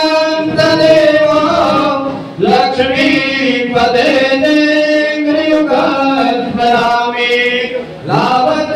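Sanskrit mantras chanted in a sustained, melodic recitation, the voice holding long notes and pausing briefly for breath about two seconds in and again near the end.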